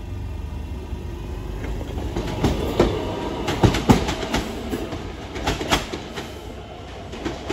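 Class 466 Networker electric multiple unit running past, its wheels clattering over rail joints in a quick run of sharp clicks and knocks over a steady low rumble. The clatter is loudest about four seconds in and fades toward the end.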